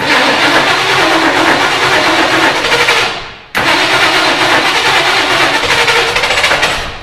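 The 400 stroker V8 of a 1975 Ford Ranchero GT is cranked on the starter in two long attempts, each starting abruptly and fading away when released. It is hard to start because the open manifold vacuum port is causing a vacuum leak.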